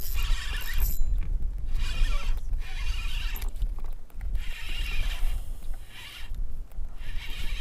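Spinning reel (Daiwa Capricorn 2500) working against a hooked bass: a run of rasping, whirring spurts about one to two seconds long with short pauses between them, over a steady low rumble.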